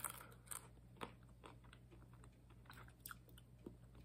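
Faint crunching of a person chewing roasted almonds: a string of short, irregular crunches.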